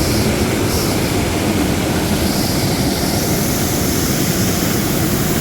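Steady, loud roar of a waterfall rushing down the gorge.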